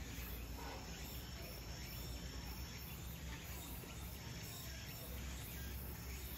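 Faint, steady chirring of insects, with a thin high tone that comes and goes, over a low rumble.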